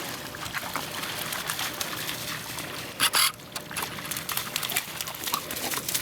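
Labradors splashing and running through shallow floodwater: continuous sloshing and splashing, with a louder splash about three seconds in.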